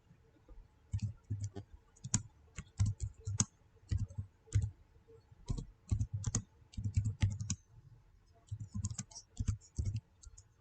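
An irregular run of quick clicks and taps, a few a second, each a dull knock with a sharp tick on top, with a short pause a little after the middle.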